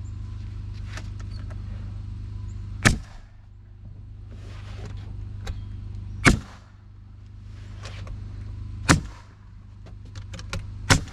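Nails being driven into rough-sawn live-edge poplar siding boards: four loud, sharp strikes spaced about two to three seconds apart, with a few lighter taps near the end. A steady low hum runs underneath.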